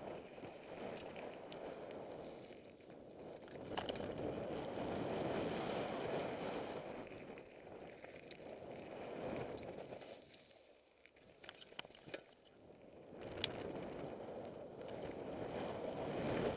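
Mountain bike tyres rolling fast over loose stone and gravel on a downhill trail, with the bike rattling and scattered sharp clicks. The rolling noise drops away for a couple of seconds about eleven seconds in, and a single sharp click follows.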